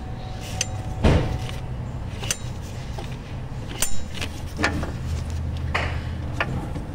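Scattered clicks and knocks of hands and tools working at the alternator, with two sharper knocks about a second in and near four seconds, over a steady low hum.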